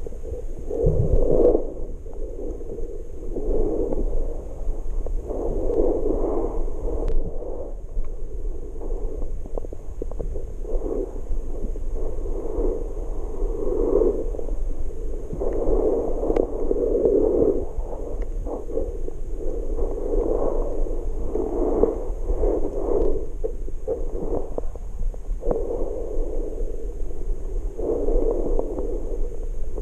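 Muffled underwater water noise heard through a waterproof camera housing, swelling and fading every second or two.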